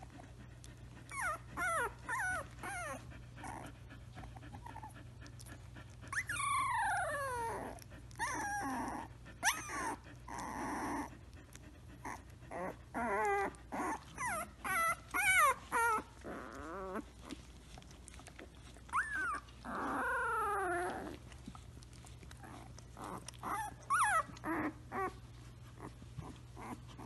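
Samoyed puppy making a string of short, squeaky whining and grumbling sounds whose pitch mostly slides downward. It comes in clusters with pauses between, and a few longer falling calls last a second or two.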